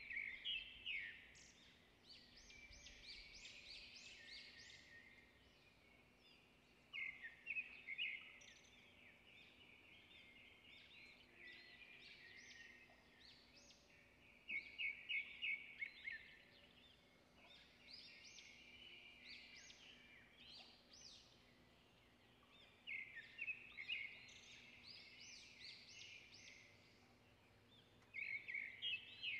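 A bird singing: short bursts of quick chirps repeated every several seconds, with fainter chirps between, over otherwise near-silent room tone.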